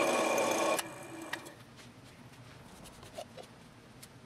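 Drill press running with a steady whine while its bit cuts into an aluminum flat bar; it stops suddenly about a second in. After that come a few faint clicks.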